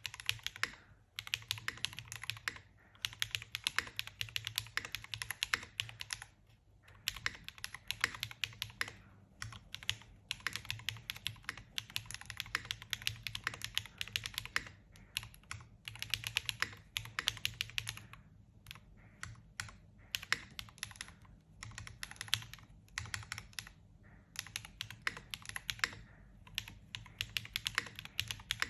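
Custom tenkeyless mechanical keyboard (ND TKL, 1.6 mm PCB) being typed on fast: dense runs of key clicks and clacks broken by short pauses.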